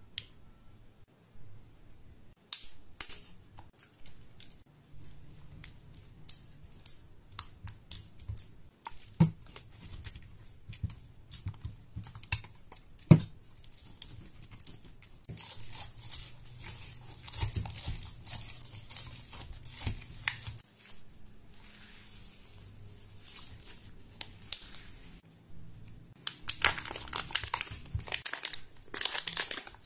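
Glue being mixed in a glass bowl: scattered clicks and taps of a spatula and fingers against the glass, then sticky crackling as hands work the glue. Near the end, a thin plastic wrapper crinkles loudly as a packet is opened over the bowl.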